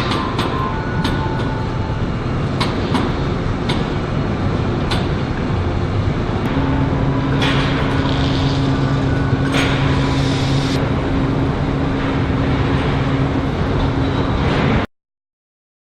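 Car assembly plant machinery running: a steady mechanical rumble with sharp clicks in the first few seconds. A steady hum joins it about six and a half seconds in, and the sound cuts off suddenly near the end.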